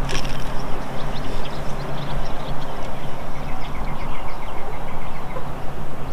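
A steady low motor hum from a fishing boat, with a rushing noise over it and a quick run of light ticks about halfway through.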